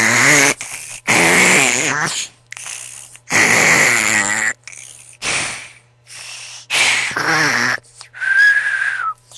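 A person snoring loudly, a series of irregular buzzing snores about every one to two seconds, with a high whistling breath near the end that falls in pitch as it stops.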